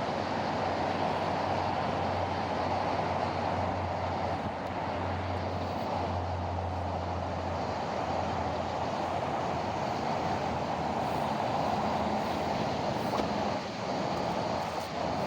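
Steady vehicle and traffic noise with a low hum underneath, level throughout.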